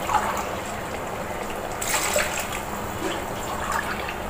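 Thin second-extract coconut milk pouring in a steady stream from a metal vessel into an uruli of hot, cooked-down pineapple and jaggery.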